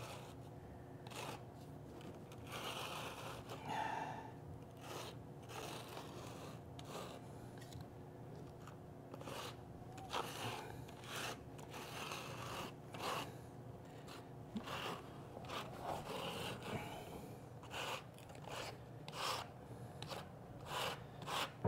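Rubber grout float scraping and pressing runny grout into the joints of brick-veneer pavers: faint, irregular scrapes and rubs.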